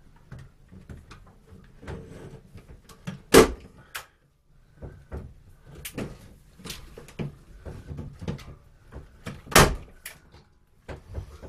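Work sounds from running electrical cable through a wall: many small clicks, taps and knocks, with two loud sharp bangs, one about three seconds in and another about six seconds later.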